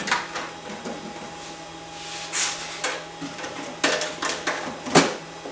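Scattered knocks, clicks and clatter of parts being handled, the loudest knock about five seconds in, over a steady low hum.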